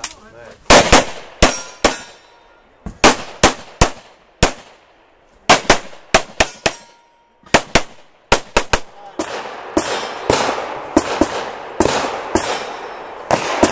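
Semi-automatic pistol fired in quick strings of two to five shots, separated by pauses of a second or two. The shooting stops about nine seconds in, leaving a steadier noisy stretch.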